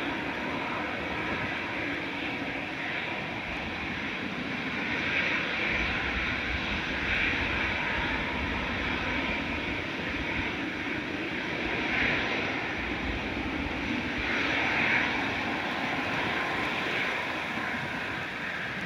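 Jet airliner engines during takeoff, a steady rushing noise with slight swells in loudness.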